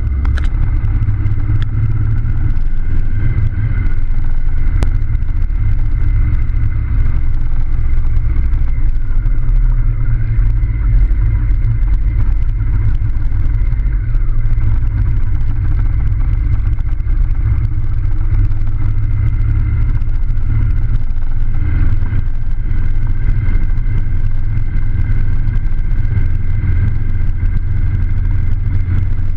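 Motor vehicle driving at a steady speed on an unpaved dirt road: a constant loud low rumble of engine and tyres on the dirt surface, without changes in speed.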